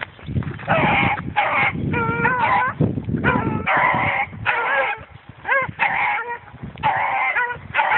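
Beagles baying as they run a rabbit track: short, high bawling calls, about one a second, from more than one hound, sometimes overlapping.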